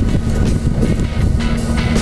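Background music with drums, over a constant low rumble.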